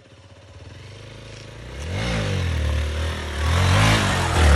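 Hero XPulse Rally Edition's single-cylinder engine pulling under throttle, its revs rising and falling twice, over wind and road noise. It starts faint and grows louder, loudest near the end.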